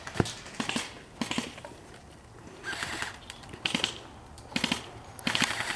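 Irregular crunching and rustling of quick steps through dry brush. About half a second before the end, an airsoft gun opens up on full auto, a rapid, even burst of shots.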